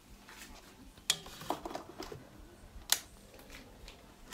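Kitchen utensils clinking and knocking against a mixing bowl, with two sharp knocks about a second and three seconds in and lighter clatter between them.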